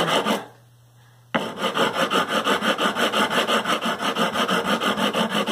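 Sanding block scraping back and forth over the metal frets of a Fender Stratocaster neck in quick, even strokes, leveling high frets that cause buzzing. The strokes stop just under half a second in and start again abruptly about a second later.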